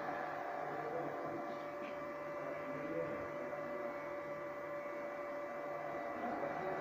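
Fanuc A06B-0373-B175 servomotor running on a test run with its shaft spinning: a steady hum with a high whine.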